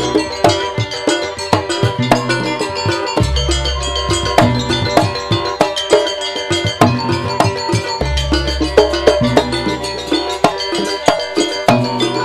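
Live jaranan gamelan music: a fast, dense stream of mallet strikes on metal-keyed instruments and drums. A deep low tone comes in every four to five seconds and holds for a second or two.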